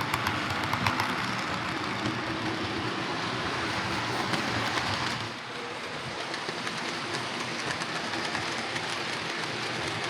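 Hornby R2169 Merchant Navy 'Clan Line' OO gauge model locomotive running on track: its motor and gears whirring steadily, with the wheels clicking over the rail joints. The running gets a little quieter about halfway.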